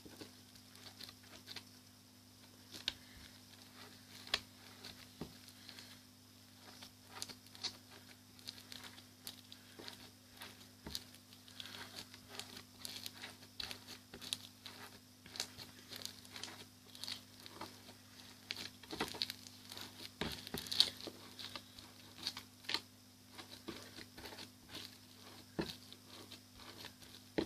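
Hands kneading and squishing a sticky slime full of beads: a steady run of irregular small clicks and crackles, with a few louder pops now and then.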